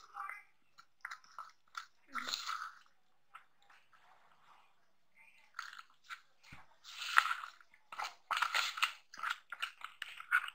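Metal spoon stirring gram-flour batter in a bowl: wet squelching and scraping, with short clicks of the spoon against the bowl. Water is poured in from a glass partway through, and the stirring is busier after that as the mix turns into a runny batter.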